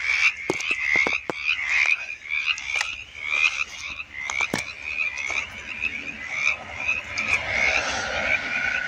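A chorus of mountain chorus frogs calling, many short calls repeating and overlapping, with scattered sharp clicks and scuffs close by.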